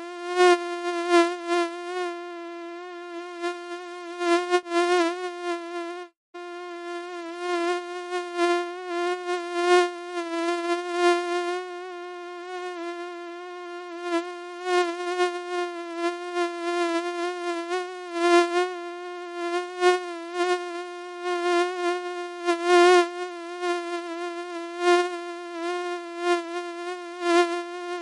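Mosquito wing whine: a steady, high-pitched buzz that swells and fades a little, as if the insect is moving near the ear. It breaks off for a moment about six seconds in.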